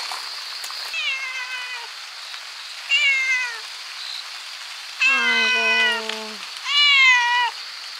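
Orange-and-white stray cat meowing four times, each call sliding down in pitch; the third is lower and the longest. Steady rain patters underneath.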